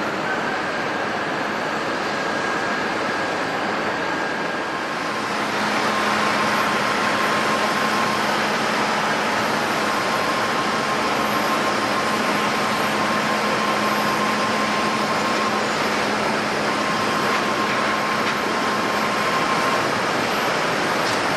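Jet airliner engines running: a steady rushing noise with faint thin whines in it, growing louder about five seconds in and then holding.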